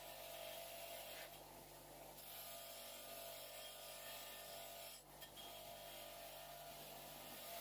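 A small electric power tool running steadily with a dry rubbing, abrading sound against metal, easing off briefly twice.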